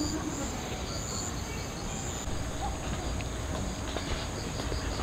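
Insects chirping in a steady chorus of regular high-pitched pulses; a second, faster pulsing chirp joins about three and a half seconds in. A low steady rumble lies underneath.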